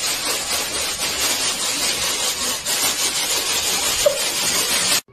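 Thin plastic bag rustling and crinkling steadily as a cat moves about with its head and body inside it.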